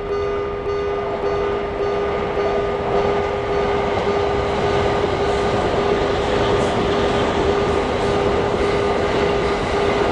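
Japanese railroad-crossing warning bell ringing its steady "kan-kan" about twice a second while a train passes. The train's running noise builds up about two seconds in and stays loud over the bell.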